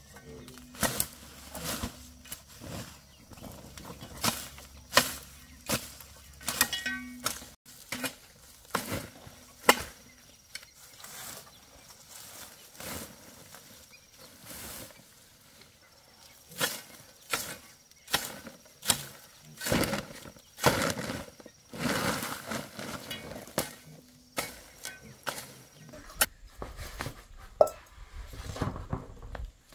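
Irregular knocks and chopping strokes of a hand tool, coming every second or so in short runs.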